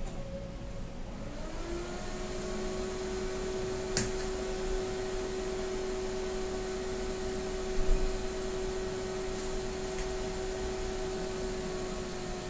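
Dell small-form-factor desktop computer powering on: its cooling fan spins up about a second and a half in and then runs with a steady whine at boot speed. A sharp click comes about four seconds in and a low thump about eight seconds in.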